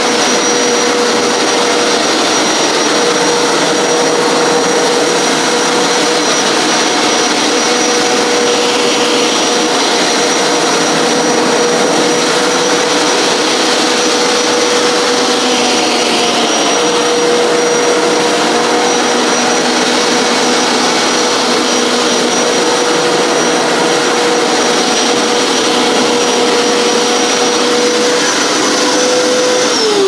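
Hoover PowerScrub XL Pet carpet cleaner running over carpet, its suction motor a loud, steady whine. Near the end the motor is switched off and the whine falls in pitch as it winds down.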